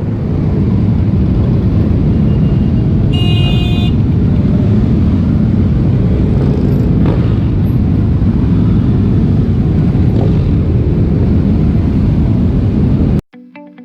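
Massed motorcycle engines running together in a loud, steady rumble, with a short horn toot about three seconds in; the sound cuts off suddenly near the end.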